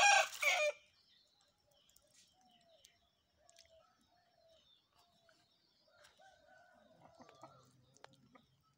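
A Hira Aseel rooster finishes a loud crow in the first second. After that come only faint short calls, roughly one a second.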